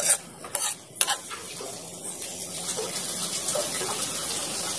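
Bagoong alamang (fermented shrimp paste) frying in oil in a metal pan. A metal spoon scrapes and clicks against the pan a few times in the first second, then a steady sizzle.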